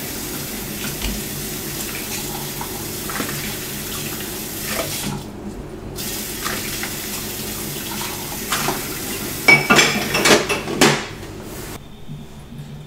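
Kitchen tap running into a sink while dishes and cutlery are washed, with clinks and clattering of pots and plates, loudest about ten seconds in.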